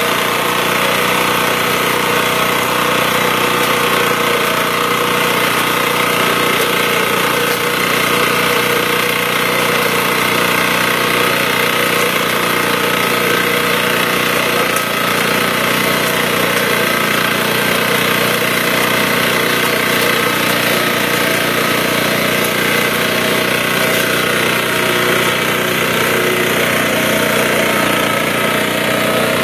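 Small engine of a walk-behind sugarcane cutting machine running steadily at a constant speed.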